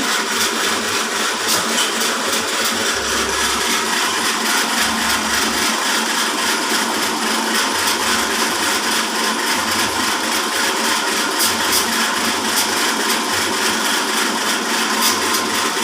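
Horizontal band sawmill running, a steady continuous machine noise with no pauses.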